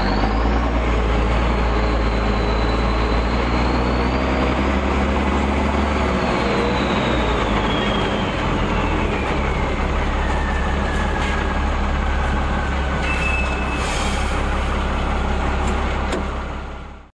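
Reo M35 army truck running under way, a steady heavy rumble with a thin high whine that slides slowly down in pitch over several seconds. The sound fades out quickly at the very end.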